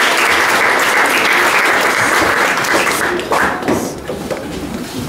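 Audience applauding, many hands clapping at once; the applause dies away about three seconds in.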